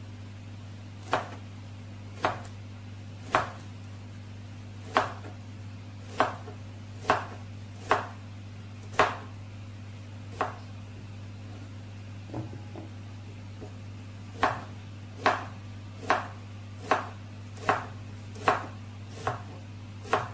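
Kitchen knife slicing young green bananas into rounds on a plastic cutting board: a sharp knock of the blade reaching the board about once a second, with a pause of a few seconds midway.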